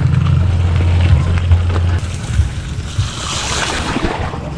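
Wind rumbling on an action-camera microphone while a mountain bike is ridden over rough ground, with loose rattles and knocks from the bike. The low rumble is steady for about two seconds, then gives way to scattered rattling and a short stretch of hiss.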